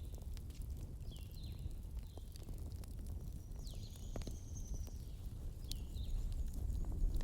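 Wood fire burning with a steady low rumble and scattered sharp crackles and pops. Several short high squeaks that fall in pitch, and one longer high squeal near the middle, sound over it.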